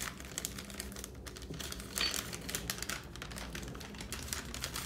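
Plastic MRE ration-heater bag crinkling and crackling as it is folded and handled, in quick irregular clicks with a louder crackle about two seconds in.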